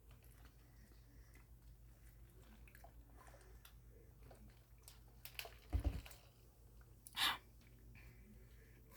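Quiet close-up chewing of French fries, with a cluster of knocks and thumps about six seconds in and a short loud breathy rush about a second later.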